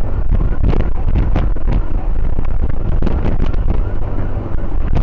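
Heavy wind buffeting the microphone of a moving motorcycle, over a steady low rumble of engine and road.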